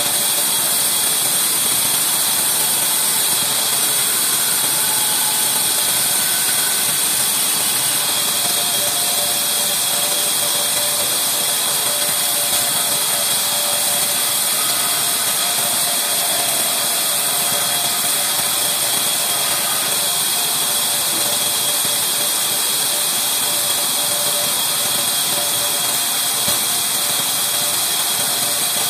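Large workshop band saw running steadily with a high hiss while a wooden plank is fed through it and ripped lengthwise.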